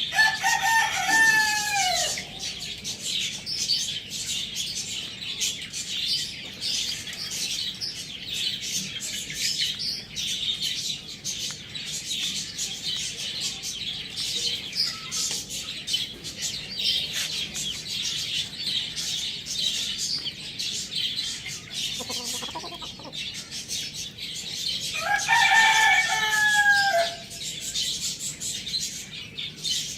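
A rooster crows twice, once at the start and again about 25 seconds in, each crow about two seconds long and falling at the end. Small birds chirp and twitter constantly underneath, and a short lower call comes a few seconds before the second crow.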